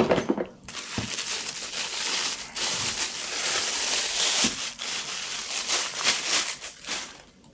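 Thin clear plastic bag crinkling continuously as a pair of binoculars is unwrapped from it, after a brief knock right at the start.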